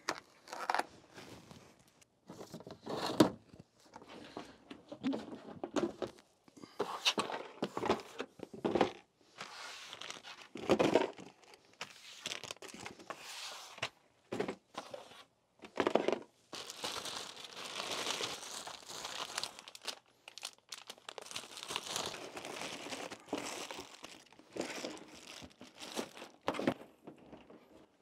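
Irregular crinkling and tearing of plastic mailer packaging as a package is opened, mixed with knocks and scrapes of a plastic drawer unit being handled.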